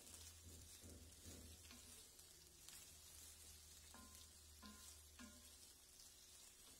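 Chopped onions and green chillies frying in oil in an iron kadai, a faint steady sizzle, while a wooden spoon stirs and scrapes them. A low hum runs underneath.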